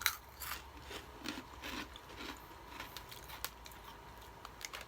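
Faint, irregular crunching and crackling: small crunchy biscuit snacks being bitten and chewed.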